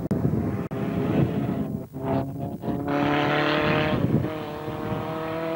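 Small saloon race car's engine running hard at high revs on a hill climb. About two seconds in, the engine's pitch comes through clearly; there is a rush of noise around the third second, and the pitch sinks slowly near the end.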